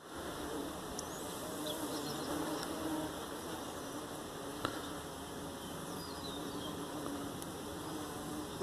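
A flying insect buzzing in a low, wavering hum over steady outdoor hiss, with one sharp tick about halfway through.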